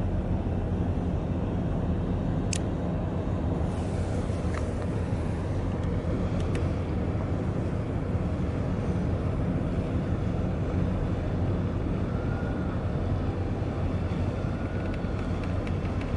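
Large container ship under way, its engines making a steady low rumble, with a few faint short high chirps over it.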